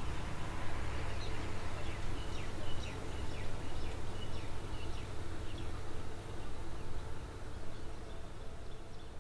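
Distant diesel locomotive idling with a steady low hum, under repeated high chirping calls; the sound fades out near the end.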